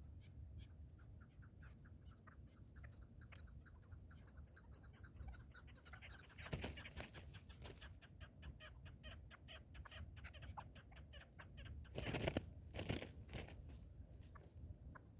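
Partridge giving a rapid series of short clucking calls, fairly faint. Two louder bursts of rustling noise break in, one partway through and one near the end.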